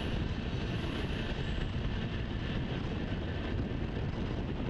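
Steady low rumble of a freight train that has just passed and is moving away, blended with wind noise on the microphone.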